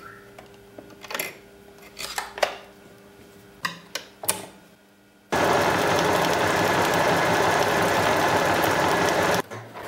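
A few small plastic-and-metal clicks as the snap-on presser foot of a Janome DC 4030 sewing machine is taken off and clipped on. About five seconds in, the machine starts stitching at high speed with a steady fast mechanical whir, cutting out briefly near the end.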